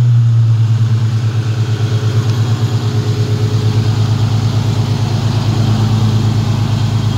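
Ford Freestar 3.9-litre V6, swapped into a Mustang, idling steadily with an even, pulsing low hum, breathing out through long-tube headers and Flowmaster 44 mufflers.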